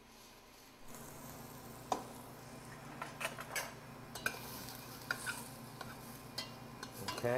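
A metal spoon stirring hot diced mirepoix (celery, carrot and onion) in a stainless steel pot, with repeated scrapes and clicks against the pot over a light sizzle from the cooked vegetables.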